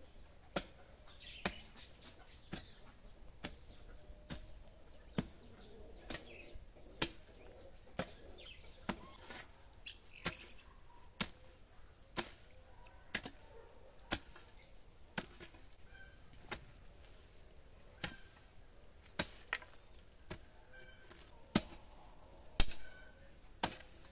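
Broad-bladed garden hoe chopping into dry ground to cut out weeds and grass, about one blow a second in a steady rhythm.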